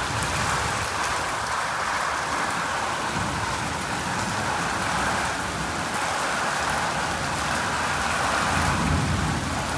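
Steady rain falling, with a brief low rumble near the end.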